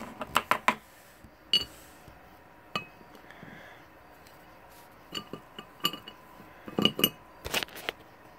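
Small plastic toy figurines clicking and tapping against a plate and a wooden tabletop as they are handled. The clicks are scattered, a few at a time, with the densest cluster in the last couple of seconds.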